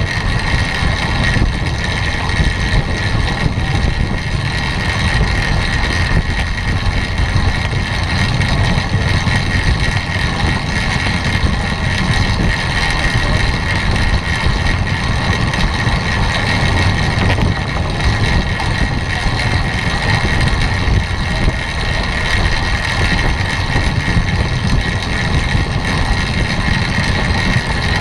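Steady rush of wind over the microphone and tyre noise from a bicycle riding at about 26 mph on the wooden boards of a velodrome track, a constant low rumble with a steady hiss over it.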